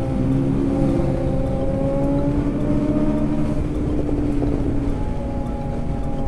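Motorcycle engine pulling at road speed, its note climbing slowly as the bike accelerates, then changing to a different steady note about five seconds in.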